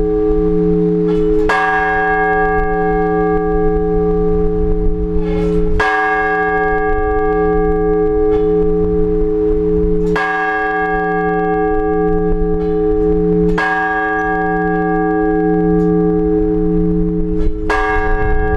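A large Orthodox church bell struck slowly and evenly, five strokes about four seconds apart, each left to ring on with a wavering low hum between strokes. This is the measured single-bell blagovest tolling that calls people to the all-night vigil.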